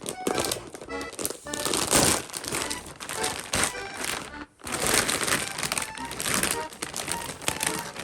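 Packaging crinkling and rustling in bursts as a random merchandise item is unwrapped, with a brief pause about halfway through.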